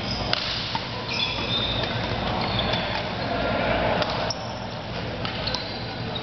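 Doubles badminton rally: sharp racket hits on the shuttlecock a second or two apart, with brief high-pitched shoe squeaks on the court floor, over a steady hum of the hall.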